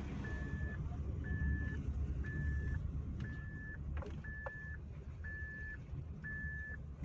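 Suzuki Alto cabin noise while driving over a rough road: steady low rumble of the car and tyres, with no clunk from the rear suspension, whose bent rear rod has just been straightened. An electronic warning beep sounds about once a second throughout, and there are a couple of faint light knocks about four seconds in.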